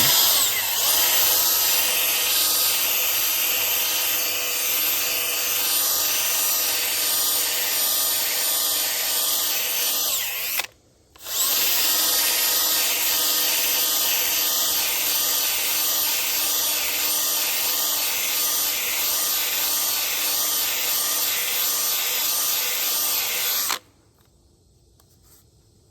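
Power tool spinning a Velcro-backed grinding pad against the curb-rashed edge of a wheel rim, grinding the damage down: a steady motor whine with a gritty scraping. It stops for a moment about 11 seconds in, starts again, and cuts off a couple of seconds before the end.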